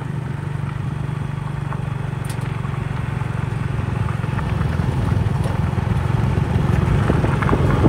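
Small motorbike engine running steadily while riding along a dirt road, with road and wind noise over it, getting louder over the last few seconds.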